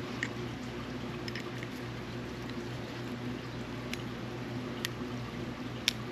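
Faint, light clicks of small metal reel parts being handled as a bail spring and pivot arm are fitted on a spinning reel's bail, five or so scattered ticks with the sharpest near the end, over a steady low hum.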